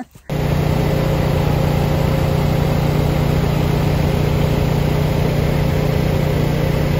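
Engine-driven generator at the well running steadily at constant speed with a loud, even hum, powering the well pump. It starts suddenly a moment in.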